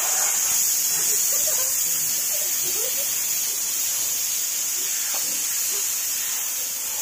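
Several aerosol snow-spray cans hissing together in a steady, continuous high-pitched spray.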